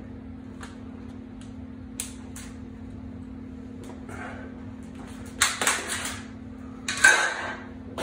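Sheet-metal duct panel being worked by hand: a few light clicks and taps as a hand bending bar is set and an edge folded, then the thin sheet rattling and flexing twice, louder the second time, as it is moved. A steady low hum runs underneath.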